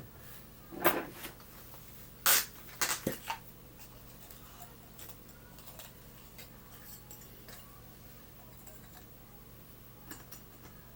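Small metal clicks and knocks of tools and lock parts being handled during disassembly of a pin-tumbler lock: a handful of sharp clinks in the first few seconds, then faint ticking and one more click near the end.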